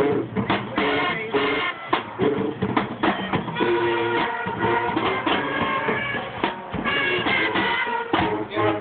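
Band music with a drum kit keeping a steady beat under sustained pitched instrument notes.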